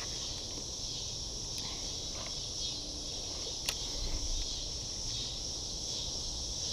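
Steady, high-pitched chorus of insects chirring, with one sharp click about three and a half seconds in.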